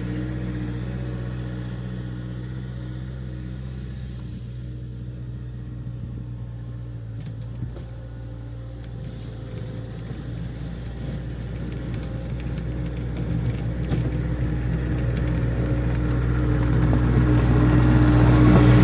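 Gehl skid steer's diesel engine running steadily while pushing snow with a snow pusher, growing steadily louder over the second half.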